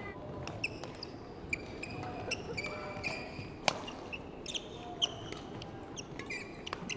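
Badminton rally: sharp racket strikes on the shuttlecock, one louder near the middle, mixed with many short high squeaks of court shoes on the hall's wooden floor.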